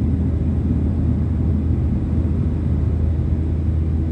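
Steady low rumble of a Boeing 737-700's CFM56-7B turbofan engines, heard inside the cabin from a window seat over the wing as the airliner climbs after takeoff.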